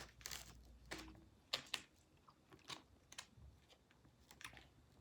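Faint eating sounds from a person eating takeout hibachi: about ten short, irregular clicks and small crunches of chewing and utensils, loudest around one and a half seconds in.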